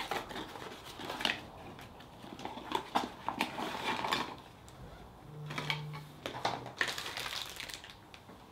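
Plastic packaging crinkling and small plastic parts clicking as they are handled, while a replacement key fob case is unpacked. A brief low hum sounds a little past the middle.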